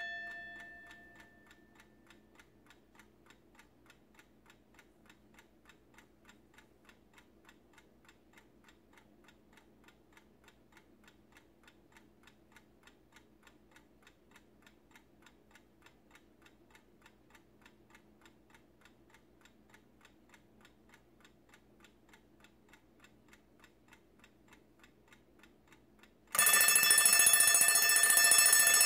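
Wehrle Three-in-One alarm clock: its alarm bell ringing dies away, the movement ticks quickly and evenly for about 25 seconds, and the bell starts ringing loudly again near the end. Ring, pause, ring: the clock's intermittent repeating alarm.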